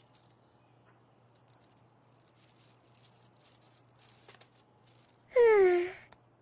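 A single voice's short, untranscribed exclamation about five seconds in, sliding down in pitch and lasting under a second, after a stretch of near-quiet with faint clicks.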